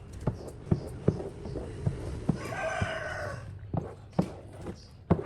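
A single drawn-out animal call lasting about a second, starting a little after two seconds in, over a series of sharp, irregular knocks.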